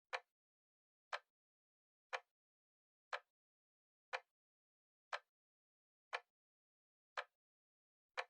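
Clock ticking once a second, with a short sharp tick each second and dead silence between.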